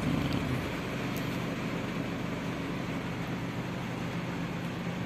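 Heavy rain falling on the roof and windshield of a Toyota Hiace van, heard from inside the cabin as a steady hiss, with a faint low hum beneath it.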